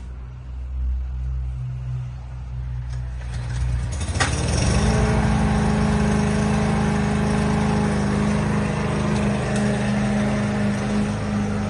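A low steady engine hum, then about four seconds in a click and a small engine starts, its pitch rising within a second to a steady fast run that holds to the end.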